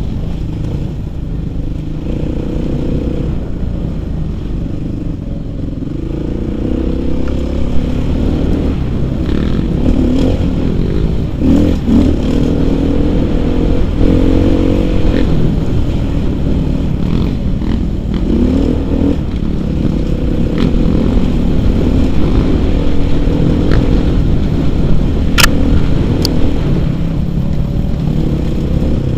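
Suzuki RM-Z450's single-cylinder four-stroke engine revving up and down as the dirt bike is ridden over a rocky trail, with clatter from the bike and stones and a couple of sharp knocks near the end.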